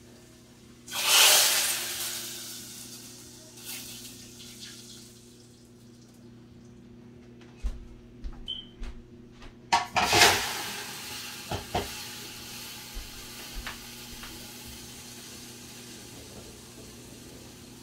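Dal being chunked: hot oil and spices from a ladle dropped into the pot of cooked dal, bursting into a loud sizzling hiss about a second in that dies away over a second or so. A second loud hiss comes about ten seconds in, with a few knocks of utensils between.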